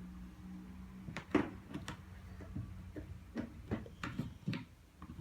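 Light clicks and knocks of small toy cookware being handled, about a dozen in a loose, irregular string, over a low steady hum.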